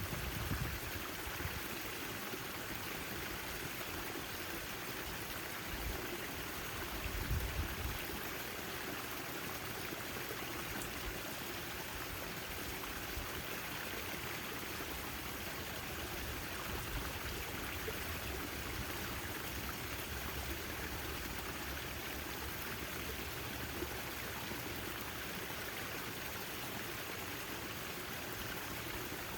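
Backyard fountain's water splashing and trickling in a steady, even rush, with a brief low rumble about seven seconds in.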